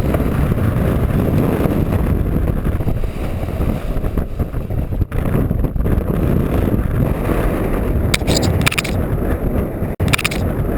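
Strong wind buffeting the microphone during windsurfing, a continuous low rumble, with a few short hissing bursts near the end.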